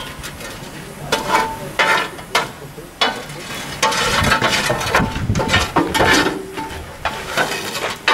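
Shovel scraping and clattering against the steel of a steam locomotive's smokebox as ash and char are dug out, in irregular strokes about once a second.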